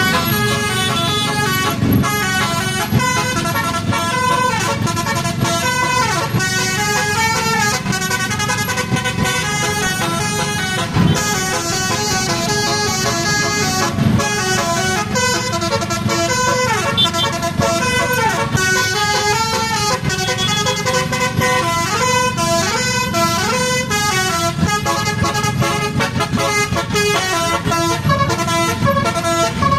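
Basuri multi-tone musical bus horn (telolet) playing a melody, its notes stepping up and down without a break, over a steady low rumble.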